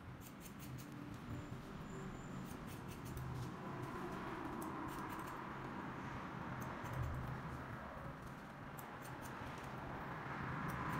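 Barber's shears snipping hair in quick runs of crisp clicks, a run every second or two, over a steady low background hum.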